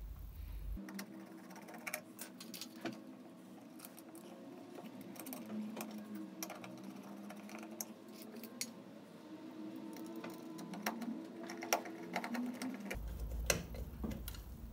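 Scattered light clicks and rattles of a car headlight unit being pressed into its bowl and its retaining screws turned with a screwdriver, over a steady low hum that wavers slightly in pitch.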